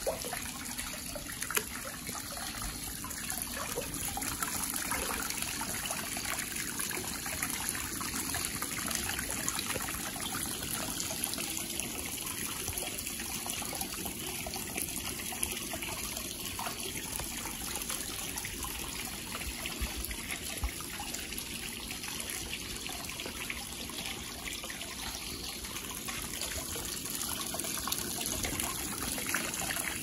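Hot spring water pouring steadily over rocks into a stone bath, a continuous splashing trickle.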